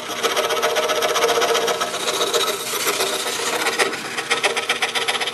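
DeWalt scroll saw running, its fine blade stroking rapidly up and down as it cuts through thin wood, with a fast, even stroke rhythm.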